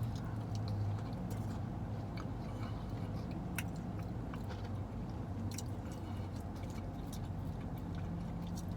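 A person chewing a mouthful of KFC mashed potato bowl with popcorn chicken: scattered small mouth clicks over a steady low hum.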